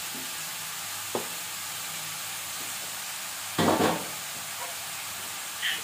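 Grated carrots sizzling in hot ghee in a steel kadai, a steady hiss at the start of roasting for gajar ka halwa. A brief louder clatter about three and a half seconds in.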